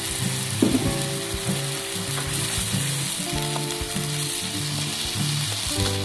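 Beef strips sizzling and bubbling in a thin sauce in a nonstick wok, with a wooden spatula knocking and stirring through the pan.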